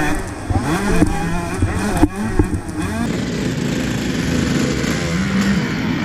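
Honda CR125's single-cylinder two-stroke engine revving up and down as it is ridden, with a couple of sharp knocks about one and two seconds in, then running steadier and lower with a brief rise near the end.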